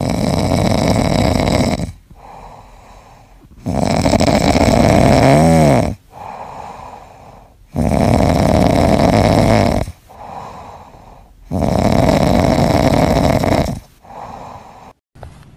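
A sleeping cat snoring loudly and rhythmically: four long snores about four seconds apart, each followed by a softer breath.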